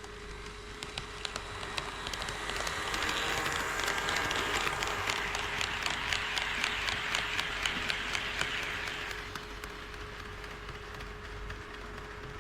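HO-scale model train running past on KATO Unitrack. Its motor and wheels swell to a peak and fade away, with rapid regular clicks from the wheels crossing the rail joints, over a steady hum.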